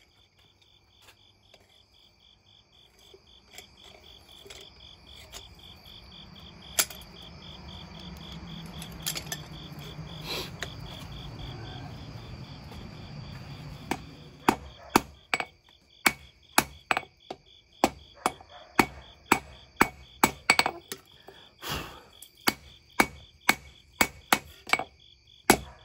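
Blacksmith's hammer striking a hot steel knife blade on the anvil to straighten it where it had bowed. A few single blows come first over a low rushing noise; from about halfway a steady run of strikes follows at about two a second.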